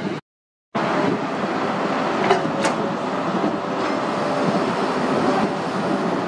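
Kato truck crane's diesel engine running steadily, with a couple of sharp metallic clicks about two and a half seconds in. The sound cuts out for half a second just at the start.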